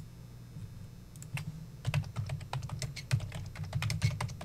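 Typing on a computer keyboard: a quick, irregular run of key clicks starting about a second in, over a low steady hum.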